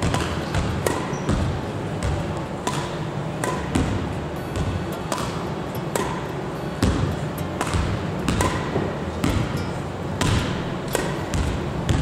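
Badminton shuttlecock being struck back and forth in a net-front receiving drill: sharp racket hits about once a second, mixed with footsteps on a wooden court floor, over a steady low background noise.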